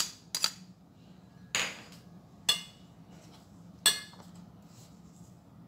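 A metal spoon clinking against a stainless steel mixing bowl: five sharp taps, spaced unevenly. The last tap rings briefly.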